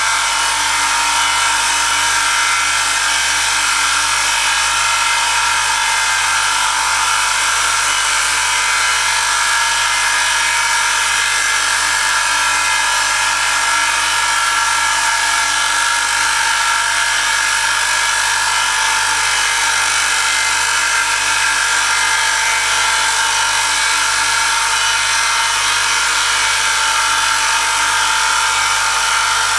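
Oil friction test rig running under load: an electric motor spins a wheel against a part pressed onto it by a lever loaded with a 1 kg weight, the contact lubricated with Q8 Formula Advance 10W-40. It makes a loud, steady mechanical whine with several constant tones that holds unchanged throughout.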